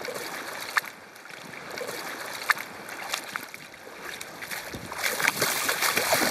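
Fast, shallow river water rushing, with a hooked fish splashing at the surface as it is played close in. The splashing grows louder about five seconds in as the fish thrashes near the surface.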